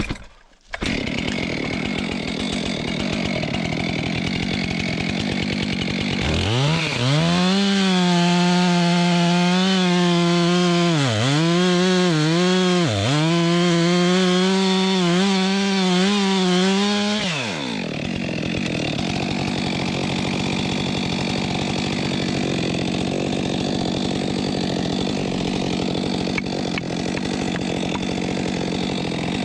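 Stihl chainsaw running at idle, then revving up about six seconds in and held at full throttle for about eleven seconds, briefly pulled down twice under load, while bucking a log that is under tension; it then drops back to idle.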